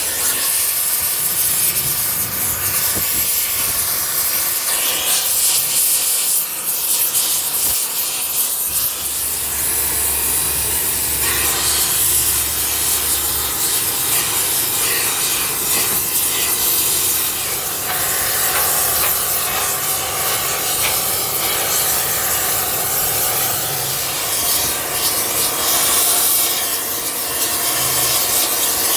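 Oxy-acetylene flame spray welding torch burning with a steady hiss as it heats cracked cast iron for a spray-weld repair.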